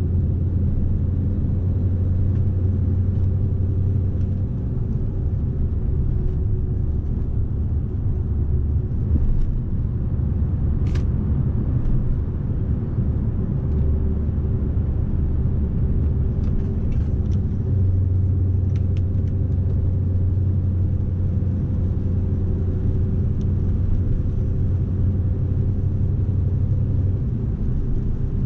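Scania S520 truck's V8 diesel engine running, a steady low drone with a fainter hum above it. A single sharp click comes about eleven seconds in.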